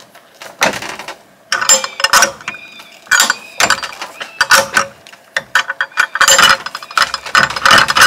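A jammed wooden gate with metal fittings being rattled and forced, in irregular bursts of clattering and scraping that grow louder toward the end; it is stuck underneath and broken.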